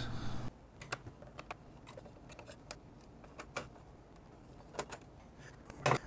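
Faint, irregular small clicks and taps of computer hardware being handled, about a dozen scattered over several seconds.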